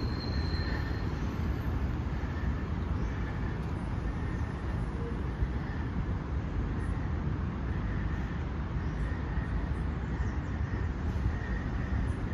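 Steady low rumble of outdoor city traffic noise, with faint high tones coming and going above it.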